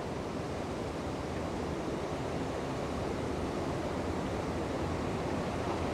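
Steady rush of river water pouring over a dam spillway and churning in the turbulent water below it.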